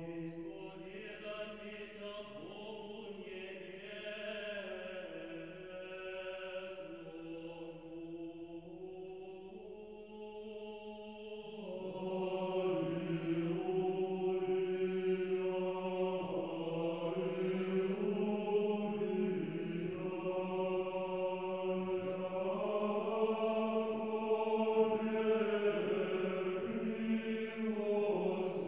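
Sung church chant, Orthodox in style: voices hold a steady low note under a slowly moving melody, and the singing swells louder about twelve seconds in.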